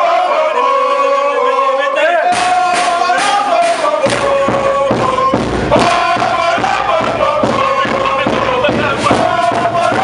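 A crowd chanting together in a celebration song. A steady percussion beat comes in about two seconds in and grows heavier a couple of seconds later.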